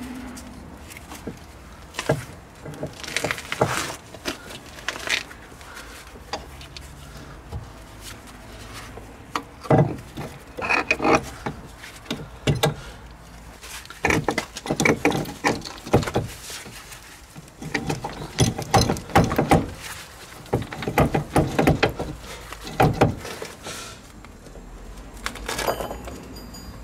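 Irregular metal clinks, knocks and scrapes as a car's driveshaft is worked into the front wheel hub and the brake disc and hub assembly is handled, coming in clusters with short pauses between.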